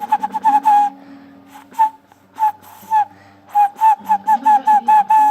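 Small toy whistle blown through a straw, sounding a string of short high toots: a quick run of them in the first second, a few scattered ones, then another quick run ending in a held note.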